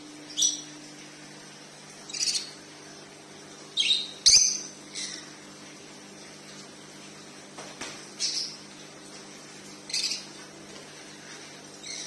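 Small caged parrots giving short, sharp, high chirps, about eight of them a second or two apart. A knock comes with the loudest chirp about four seconds in.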